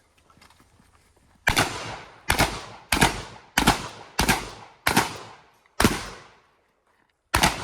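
Shotgun fired in a quick string of eight shots, mostly a little under a second apart, each crack trailing off in an echo. The last shot comes after a longer pause of about a second and a half.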